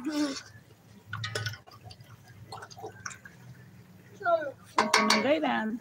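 A person talking, loudest near the end, with a few soft wet clicks and scrapes in the quieter gap as a metal spoon stirs moist rice in a metal pot.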